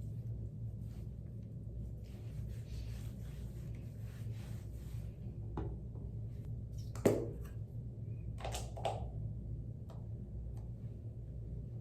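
Low steady hum with faint rustling and handling noises, broken by one sharp knock about seven seconds in and two softer clatters shortly after.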